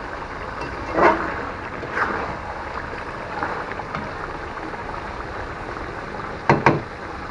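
Beef kosha sizzling in its oil in a metal karahi while a metal spatula stirs and scrapes through the meat, at the stage where the meat is frying down after its water has cooked off. Two sharp knocks of the spatula against the pan come close together near the end.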